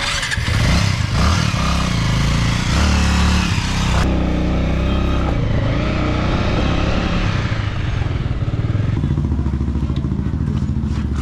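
Motorcycle engine running, its freshly replaced and greased drive chain making no chain noise. The sound is steady, with a brighter, hissier edge for the first few seconds.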